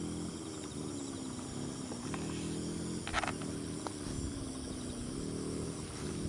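Rural outdoor ambience: insects trilling steadily and high over a low hum that slowly wavers in pitch, with a short chirp about three seconds in and a couple of faint clicks around it.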